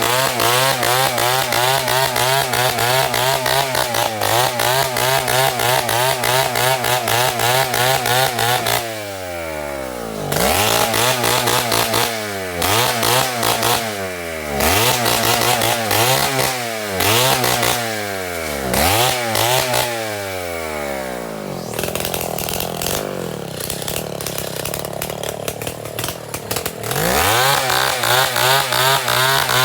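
Two-stroke chainsaw running at high revs. It is then throttled off and back on again and again, the engine note falling and rising every second or two. It runs slower and rougher for a few seconds before climbing back to full speed near the end.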